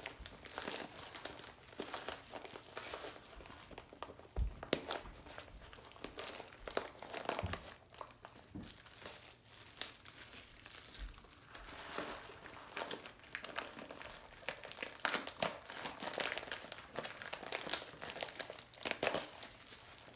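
Plastic bag crinkling and crumpling in irregular crackly bursts as hands break it up and pull it out from inside a yarn-wrapped netted vessel. The bag had been the form that the basket was wrapped around.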